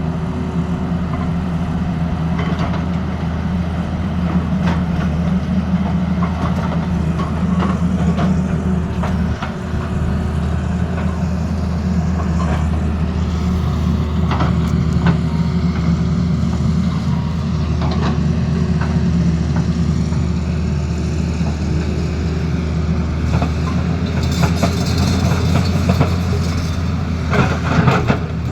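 Heavy diesel engine of a Tata Hitachi excavator running steadily, with scattered clanks and knocks. Near the end a fast rattle of sharp taps begins.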